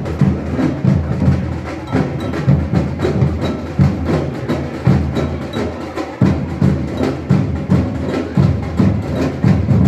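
A drum group playing a steady rhythm: deep drum beats about twice a second with sharp stick clicks between them, and a short break just past the middle.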